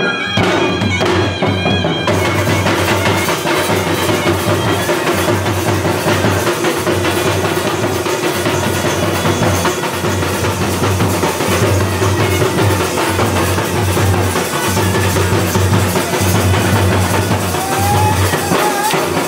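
Chhattisgarhi Raut Nacha folk music: fast, steady drumming with strong low drum beats, played loud without a break.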